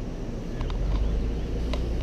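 Engine and road noise heard from inside a moving vehicle, with a low rumble that grows louder about half a second in.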